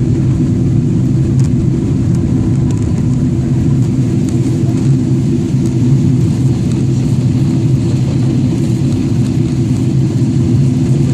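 Steady low drone of a Boeing 777-300ER's engines and airflow heard from inside the passenger cabin in flight, unchanging in pitch and level.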